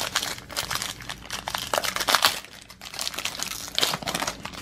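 Plastic wrapper of a baseball card pack crinkling as it is handled and opened, in two spells of crackling with a short pause about halfway.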